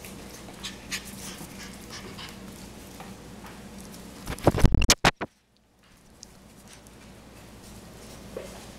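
Cavalier King Charles Spaniel puppies scampering on a tile floor, claws clicking. About four and a half seconds in, a puppy comes right up to the microphone with a short run of loud bumps, and then the sound cuts out for a moment.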